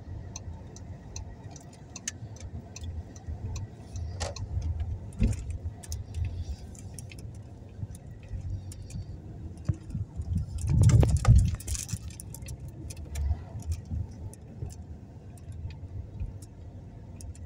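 Car driving slowly, heard from inside the cabin: a steady low road and engine rumble with scattered light clicks and rattles, swelling louder for a second or two about eleven seconds in.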